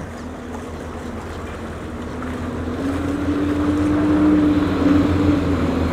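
Motorboat engine running, a steady hum that grows louder and rises slightly in pitch about halfway through.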